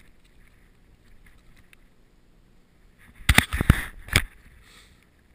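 A quick cluster of loud knocks and rubbing sounds about three seconds in, lasting about a second, as a freshly caught brook trout is handled in the angler's hand. Faint stream flow runs beneath.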